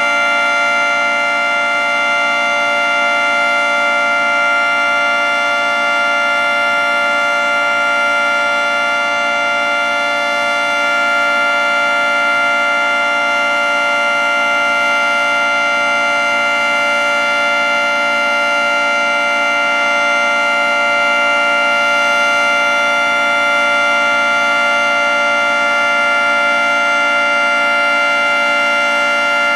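Federal Signal 3T22 three-tone outdoor warning siren sounding its steady Alert signal: a loud, unbroken multi-tone chord that holds level in pitch throughout.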